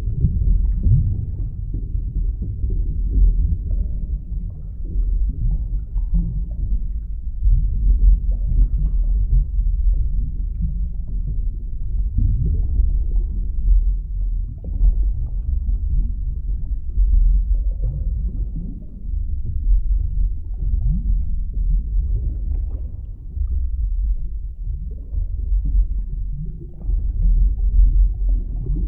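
Underwater ambience: a muffled, continuous low rumble with swells and gurgles, all deep and dull, as heard with the ears under water.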